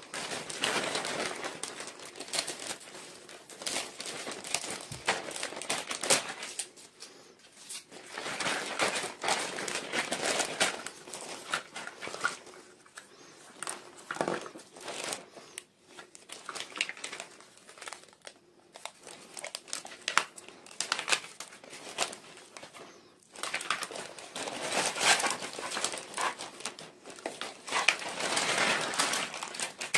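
Packaging wrapper crinkling and rustling as it is handled and opened, in irregular spells with short pauses.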